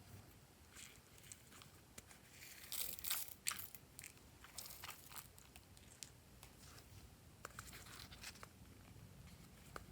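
Glossy slime being mixed, making faint, irregular sticky crackles and small pops, with a louder cluster about three seconds in.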